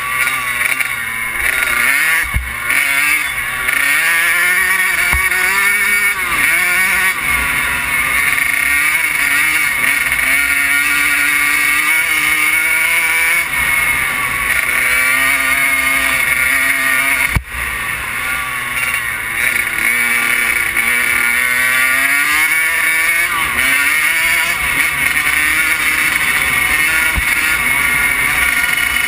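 Kawasaki KX100 two-stroke motocross bike engine, heard from the rider's helmet, revving as it rides along. Its pitch repeatedly climbs and drops, and the sound dips briefly a little past the middle.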